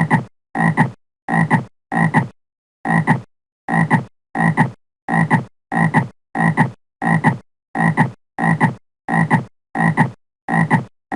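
A frog croaking over and over at a steady, even pace, about three croaks every two seconds. Each croak is short and double-pulsed, with complete silence between croaks.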